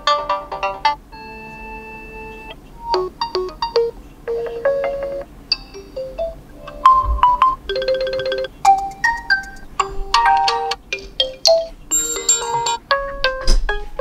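Realme Narzo 50A Prime's built-in ringtones previewed one after another: a string of short, different melodies, each cut off after a second or so as the next one in the list is selected.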